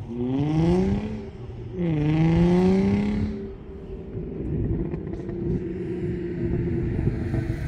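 Car engine accelerating hard on a drag run: its pitch climbs, drops at an upshift about two seconds in, climbs again, then settles into a steady drone for the last few seconds.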